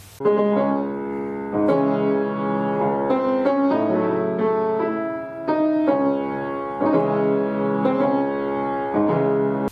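Piano music: a slow melody over chords, struck every second or two. It starts just after a short gap and cuts off suddenly at the end.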